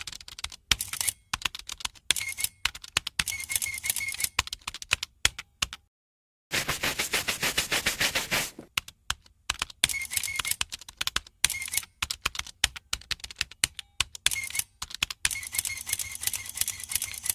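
Irregular runs of key-typing clicks, sometimes sparse and sometimes very fast, with a burst of rapid typing a little before the middle. Short high beeps come in small clusters now and then, and the sound cuts out briefly about six seconds in.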